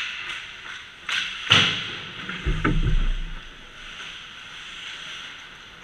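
Ice hockey play in front of the net: sharp cracks of sticks on the puck, the loudest about a second and a half in as a shot comes on goal and is saved, followed by a few heavy low thuds close by, over the scrape of skates on the ice.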